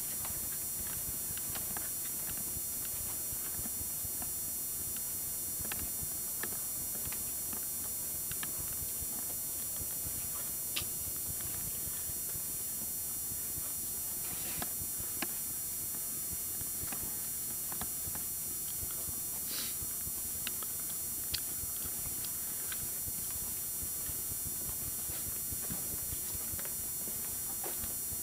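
Footsteps and scattered small clicks and knocks as someone walks through an empty building, over a steady hiss with faint high whine from the camcorder.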